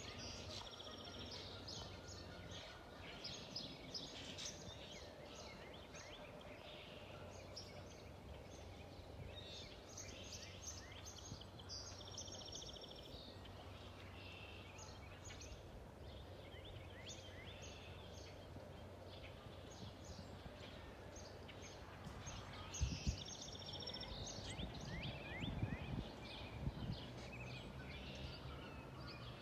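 Small birds chirping and trilling on and off, over a faint steady low rumble. A few knocks and bumps come about three-quarters of the way through.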